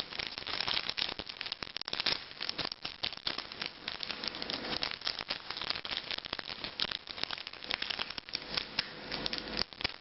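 Crinkling and crackling of a Pokémon card booster pack's foil wrapper as it is handled and opened: a continuous run of irregular crackles.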